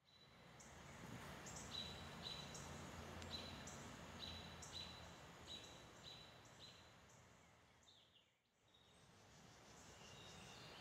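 Faint outdoor birdsong: a bird repeating short, high, whistled notes at two alternating pitches, about two a second, over a faint low hum that fades out midway.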